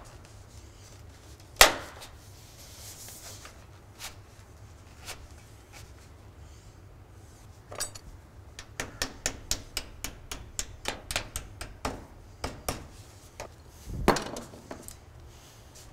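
Light hammer taps on a steel roofing panel as a tab is folded over the valley hem and starter strip. There is one sharp knock about a second and a half in, then a quick run of taps, roughly three or four a second, from about halfway. A longer scrape of sheet metal follows near the end.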